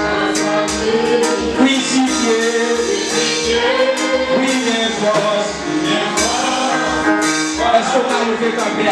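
Live gospel worship song: a man singing into a microphone over a band of drum kit, cymbals and hand drums, keeping a steady beat.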